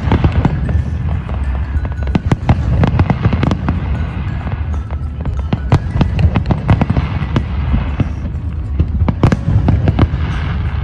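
Aerial fireworks shells bursting in a dense barrage: many booms and crackles in quick succession over a continuous low rumble.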